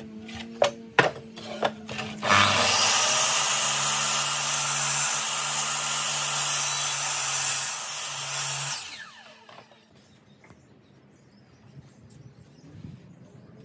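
Makita sliding compound mitre saw cutting through a pine board: a few sharp clicks, then the motor starts and the blade cuts for about six seconds, and the motor winds down after the cut.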